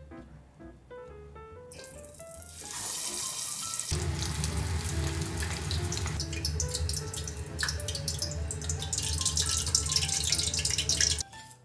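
Breaded cabbage-and-pork cutlets deep-frying in a tempura pot of hot oil: a loud, crackling sizzle that builds from about two seconds in, with a low hum underneath from about four seconds. The sizzle cuts off suddenly just before the end, over soft piano music.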